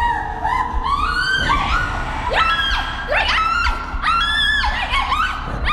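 A woman screaming and shrieking "Leave me" in Khmer, in a run of sharply rising and falling wails that come thick and fast after about two seconds, over a steady low rumbling drone.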